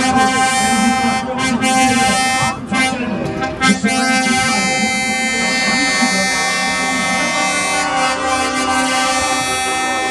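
Several truck air horns blaring together in a long, held chord of steady tones.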